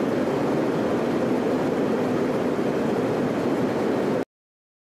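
Steady in-flight cabin noise aboard an RAF Voyager (Airbus A330 MRTT) tanker, a constant rushing drone of engines and airflow, which cuts off suddenly near the end.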